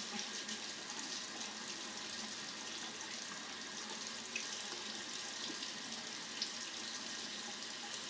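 Bathroom sink faucet running in a steady stream, the water splashing into a cupped hand and the basin while it runs waiting to warm up.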